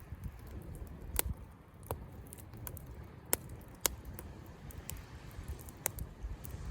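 Wood campfire crackling, with sharp irregular pops every second or so over a low rumble of waves breaking on the shore.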